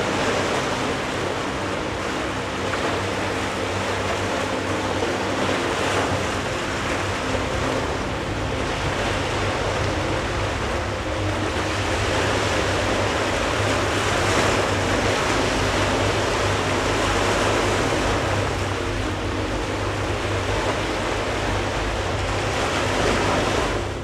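Waves breaking and washing over shore rocks, a steady rush of surf that swells and eases gently.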